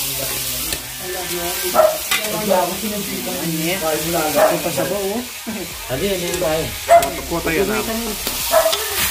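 Duck meat and vegetables sizzling in a hot metal wok while a metal spatula stirs them, scraping and clicking against the pan. Voices talk in the background.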